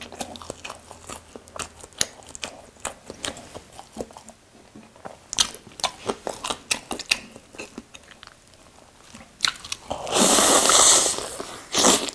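Close-miked chewing of a chili shrimp toasted sandwich, with scattered wet mouth clicks. About ten seconds in comes a loud crunch of a bite into the toasted bread that lasts a little over a second.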